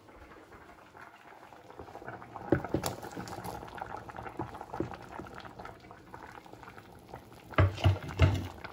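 A pot of chunky vegetable chilli soup bubbling at a simmer, with chopped onion chunks scraped off a wooden chopping board and plopping into it. Two low thumps near the end.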